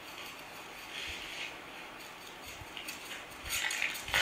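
A few faint, short scuffing and rustling sounds.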